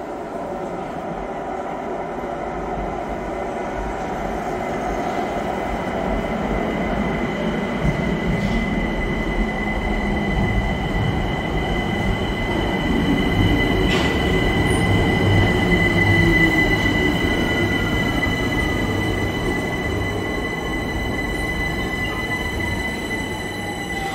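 London Overground electric train slowing to a stop: low running rumble with a steady high squeal, and the traction motors' whine falling in pitch through the second half as it brakes.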